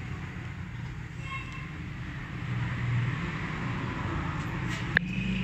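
Steady low mechanical rumble, with one sharp click about five seconds in.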